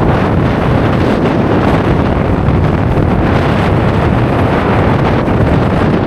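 Strong gale wind, around force 7, buffeting the microphone: loud, deep, steady wind noise that swells slightly with the gusts.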